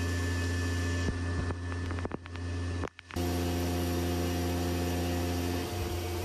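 Tormach 1100 CNC mill machining a soft jaw with an end mill under flood coolant: a steady low hum with a hiss, a few sharp clicks a little after a second in, and a brief cut-out just before three seconds in.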